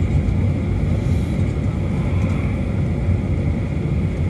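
Steady low rumble inside a Boeing 737 cabin while taxiing: the engines at idle and the airframe rolling, with a faint steady high hum.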